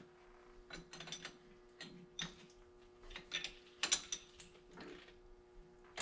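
Wrench and steel hydraulic fittings clicking and clinking in short irregular ticks as hose fittings on a tractor's top-and-tilt cylinder are worked by hand, with a quick cluster of clicks about four seconds in. A faint steady hum runs underneath.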